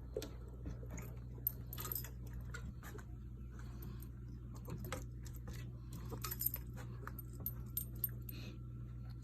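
Light metallic jingling and small clicks, scattered irregularly as a cat plays, over a steady low hum.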